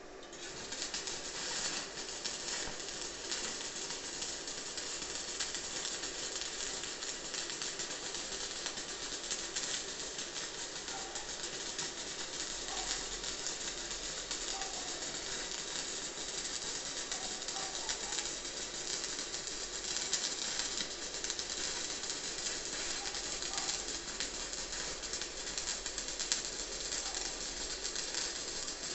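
Stick-welding arc from a 2 mm E6013 electrode at about 50 amps, crackling and hissing steadily as one continuous butt-weld bead is laid on 2 mm steel sheet. It strikes about half a second in and breaks off just before the end.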